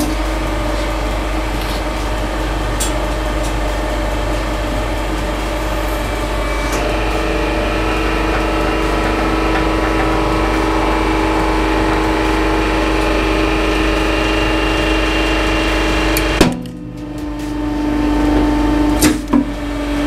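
Hydraulic press pump motor running with a steady hum as the ram squeezes a red-hot padlock flat. Its note shifts a few seconds in, and about three-quarters of the way through it cuts off with a sharp knock and dips before building up again, with a couple more knocks near the end.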